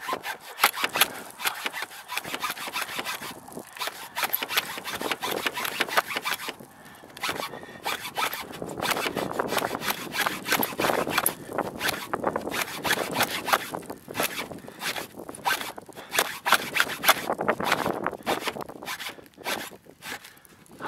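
Hand hacksaw sawing back and forth through asphalt shingles and wood, in quick rasping strokes with a few short pauses.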